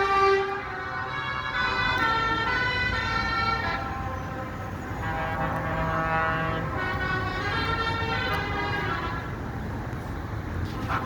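A line of trucks going by, sounding sirens and horns in long held tones that fade about four seconds in and swell again, over the low rumble of their engines.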